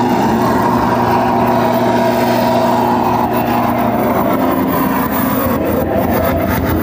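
Loud, dense electronic noise-music drone from a live noise performance: several steady low and mid hums held under a harsh hiss. A rapid stuttering pulse comes in near the end.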